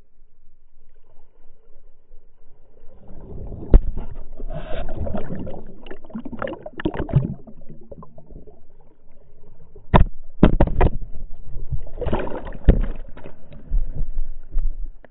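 Muffled underwater churning and sloshing of water, heard through a pole-mounted camera housing, as a hammerhead shark thrashes at a hooked tuna close to the lens. The churning builds about three seconds in, with several sharp knocks around four, ten and eleven seconds. Near the end the camera is lifted out through the surface into splashing spray.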